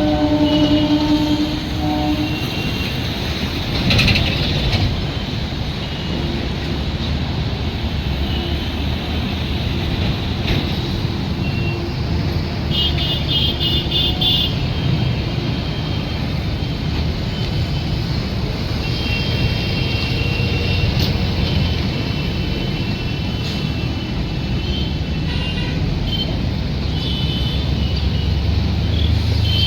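Train running with a steady low rumble, a horn sounding for about two seconds at the start.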